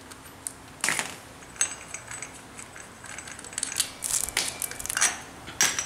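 Sharp metal clicks and clinks as a T-handled box wrench loosens the blade nut on a brush cutter's gearhead, the shaft locked by an Allen key, and is then lifted off; a cluster of clicks comes near the end.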